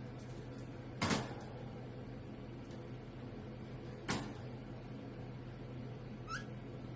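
A green parrot giving two short, harsh squawks about three seconds apart, then a faint short chirp near the end, over a steady low electrical hum.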